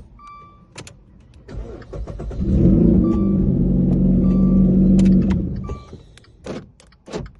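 2016 Dodge Dart engine cranked on the starter and catching on a newly programmed key, running loudly for about three seconds before dropping back down. A few short electronic beeps sound around it.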